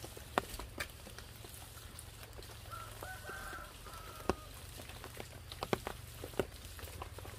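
Scattered sharp taps and knocks, the loudest about four seconds in as a metal sickle is laid down by the fire pit, with a short chicken call a second or so before it.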